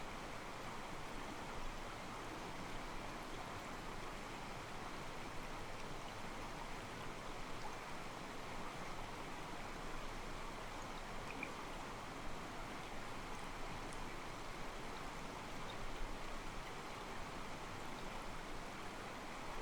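Calm mountain stream, water sloshing softly and steadily against rocks.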